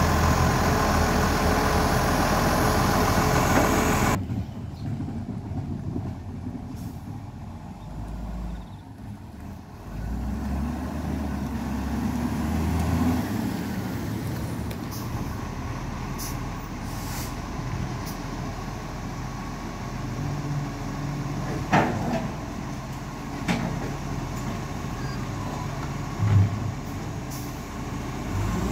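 Iveco Acco side-loader garbage truck running close by, its diesel engine loud for the first four seconds. The sound then drops suddenly to a garbage truck's engine running further down the street, with a few sharp knocks near the end.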